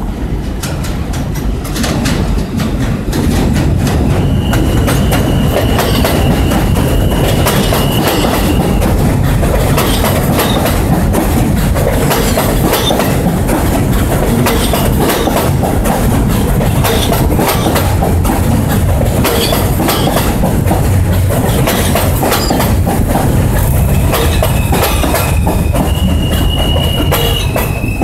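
A stainless-steel New York City subway train arriving and rolling past close by on elevated track: a heavy steady rumble with the wheels clacking over the rails. A thin high squeal from the wheels rises out of it from about four seconds in for several seconds, and again near the end.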